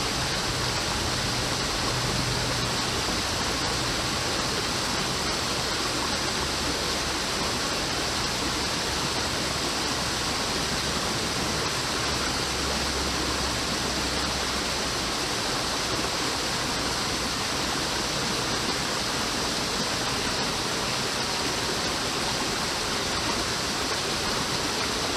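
Creek water rushing steadily over rocks, an even, unbroken hiss.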